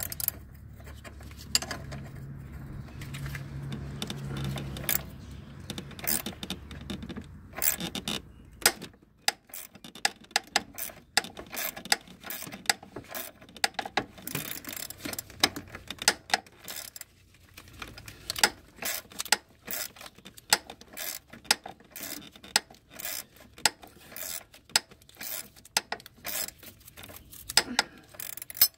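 Metal hand tools clicking and clinking as a power steering pulley puller is turned to press the pulley off its shaft. A steady low hum runs under the first several seconds, then the clicks come quickly and irregularly.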